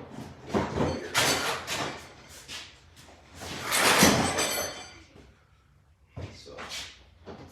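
Ridgid Pro rolling toolbox being moved: a few sharp knocks and clunks from the plastic boxes and handle, then a longer rolling, scraping noise about four seconds in, and one more clunk near the end.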